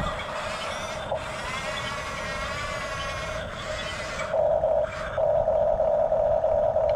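Electric drive motors of a Huina 1569 RC bulldozer whining, the pitch wavering as the load changes. About four seconds in, a louder, steady whine starts, breaks off briefly, then runs on and stops abruptly at the end.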